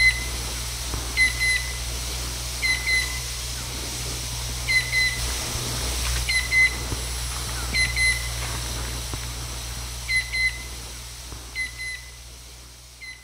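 Chestnut-winged cuckoo calling: a loud whistled double note, repeated about every one and a half seconds, fading out near the end.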